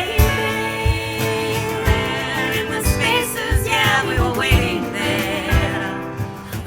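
Live band music between sung lines of a song: guitar and accompaniment over a steady low beat, with a wavering higher melody line in the middle.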